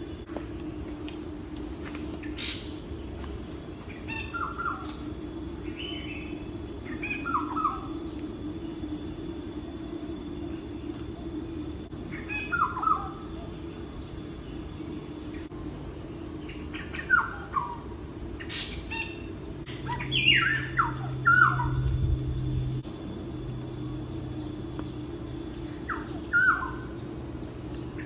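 Birds chirping in short falling calls, a few at a time every few seconds and busiest about two-thirds of the way through, over a steady high-pitched insect trill such as crickets.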